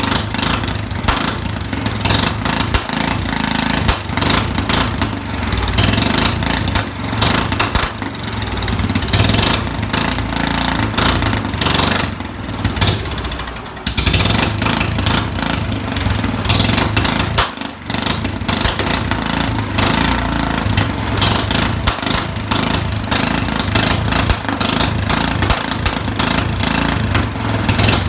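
Straight-piped John Deere lawnmower engine running loud with no muffler, its open exhaust crackling with irregular pops as it spits flames. The sound dips briefly twice, about halfway through.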